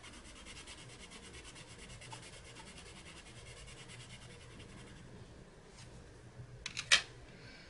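Wax-based colored pencil scribbling on paper in rapid, even back-and-forth strokes as a swatch is filled in. The scratching stops about five seconds in, and a few light clicks follow near the end, one of them sharper.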